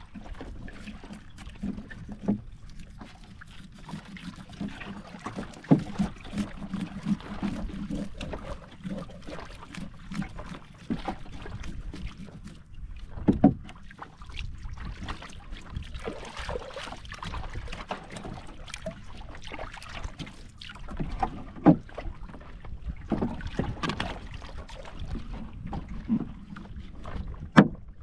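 A knife scraping and cutting a bait fish on a wooden board, with scattered sharp knocks as the blade strikes the board. Underneath is a steady low noise of wind and water around a small boat.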